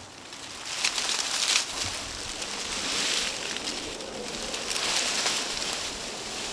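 Dry fallen leaves crunching and rustling in several bursts as a person shuffles down a steep, leaf-covered slope.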